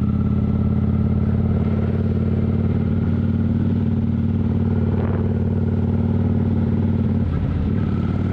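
A cruiser motorcycle's engine runs at an even pitch while the bike is ridden along the road, heard from the rider's seat. About seven seconds in, the steady note breaks up and drops slightly.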